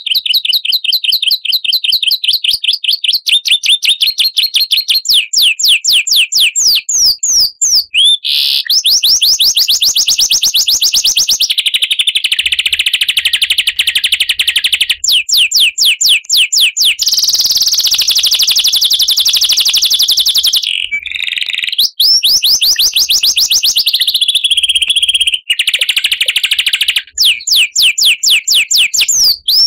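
Recorded songbird song, loud and continuous: fast high-pitched trills and rapid runs of repeated chirps, broken only by a few short pauses.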